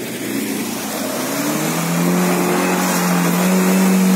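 SUV engine revving hard under load while the vehicle pushes through deep mud; its pitch climbs about one and a half seconds in and then holds at high revs, getting louder.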